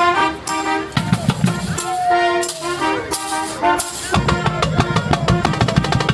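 Loud upbeat show music: repeated chord stabs at first, then a fast drum-kit beat comes in about four seconds in.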